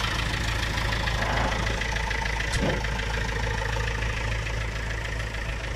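David Brown 1390 tractor's diesel engine idling steadily.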